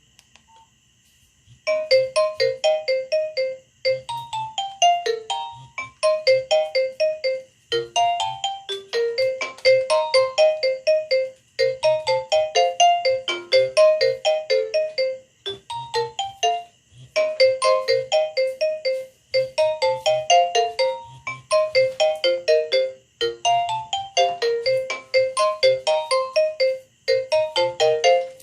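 Nokia 6085 mobile phone playing a ringtone: a quick melody of short notes over a regular low beat, looping in phrases about two seconds long with short breaks between them. It starts about a second and a half in.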